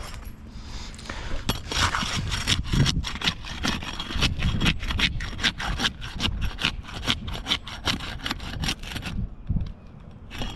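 Rapid back-and-forth rubbing strokes of a hand tool on wood, about four a second, starting about a second and a half in and stopping about nine seconds in.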